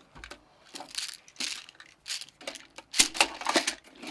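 Handling noise from a small steel toolbox and the things being fitted into it: scattered rustles, clicks and knocks, with a quick run of louder clacks about three seconds in.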